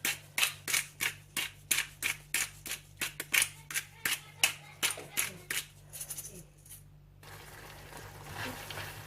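Black pepper being sprinkled over the pasta: quick, rhythmic, scratchy strokes about three times a second. They weaken and stop around six seconds in. A soft, steady hiss from the pan follows.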